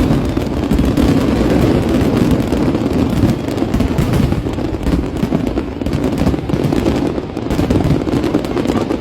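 Aerial fireworks in a continuous barrage: a dense run of rapid crackling over a steady low rumble of bursts.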